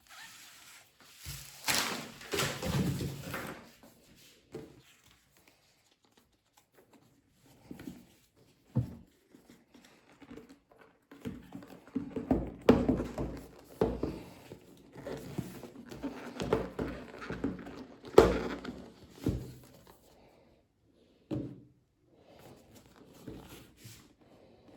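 Hands handling an iPad's cardboard box and packaging: rustling, sliding and scattered knocks in uneven bunches, with one sharp thunk about eighteen seconds in.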